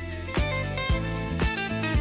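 Background music: an instrumental stretch of a soul-pop song, with a steady drum beat, bass and an electric guitar lead bending its notes.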